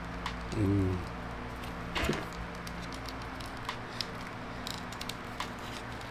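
Small plastic clicks and rubbing as a hard white plastic cape is fitted onto a Saitama prize figure, with one sharper click about two seconds in, over a steady low hum. A short hum of voice comes about a second in.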